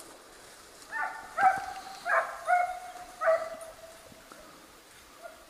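A hunting dog baying in the woods: about five yelping calls in quick succession, some short and one drawn out.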